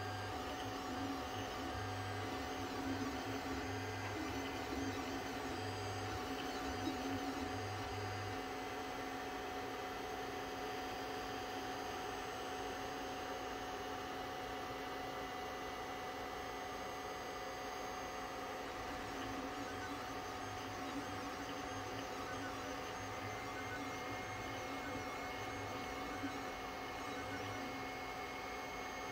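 A 3D printer humming steadily, with a few fixed whining tones. A deeper low hum cuts in and out in short spells in the first several seconds and again later on.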